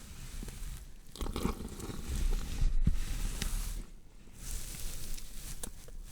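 Horror sound effect of a body being dissected: wet squelching and tearing of flesh, rising and falling unevenly, with a sharp click about three seconds in and another near the end.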